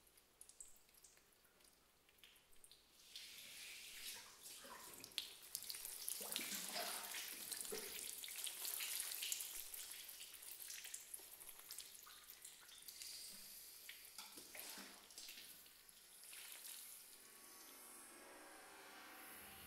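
Faint water trickling and dripping: a few separate drips at first, then a steady wash of trickle with many small drips that swells about three seconds in and eases off near the end.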